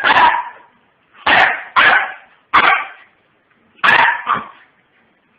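Pomeranian puppy barking in short, high-pitched yaps, about six of them, some in quick pairs.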